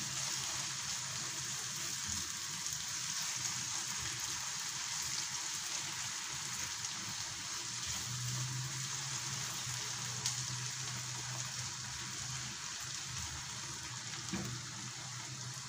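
Onion, carrot and tomato-paste sauce frying in a nonstick skillet on a gas stove, giving a steady sizzle while it is stirred with a silicone spatula.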